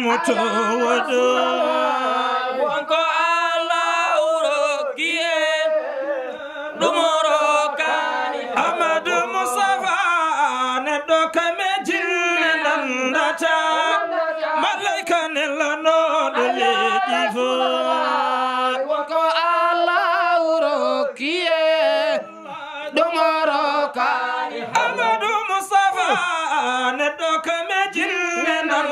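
A group of men chanting an unaccompanied Sufi devotional song. A lead voice sings on a microphone and others join in, the melody rising and falling in long lines.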